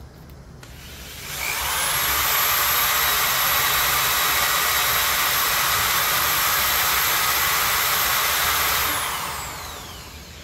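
Power drill spinning a hard-plastic threaded piece on a bolt against a strip of coarse sandpaper, sanding down the threads. The drill speeds up about a second in, runs steadily with a high whine, then winds down with a falling whine near the end.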